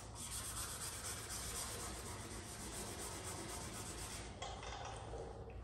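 Fine-grit sandpaper rubbed by hand over the wet primer of a steel truck cab panel, a steady soft scraping: wet-sanding the final primer coat before black paint.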